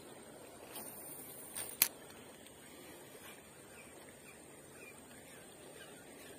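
A cast with a Daiwa Revros spinning reel: a brief hiss of line running off the spool about a second in, ending in a sharp click as the bail snaps shut. After that, a steady wash of river water with faint bird chirps.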